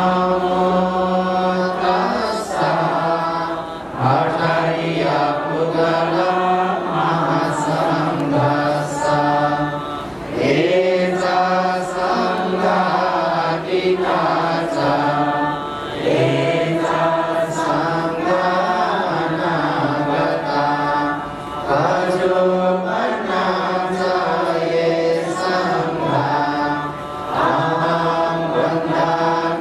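Buddhist devotional chanting: voices intoning in long, held phrases of about five or six seconds, each separated by a brief pause for breath.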